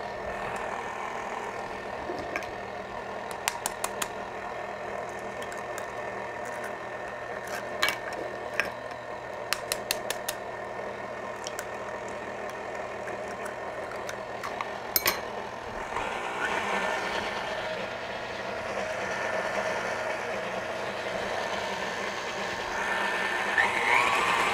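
KitchenAid Classic tilt-head stand mixer running with its wire whisk, beating eggs into pound cake batter in the stainless steel bowl: a steady motor whine with sharp clicks now and then. About two-thirds of the way through it grows louder, and near the end its pitch rises.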